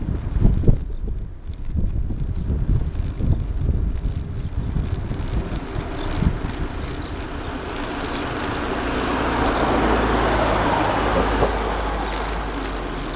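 Wind buffeting the microphone of a moving bicycle, in low rumbling gusts. In the second half a car passing on the adjacent road swells and then fades.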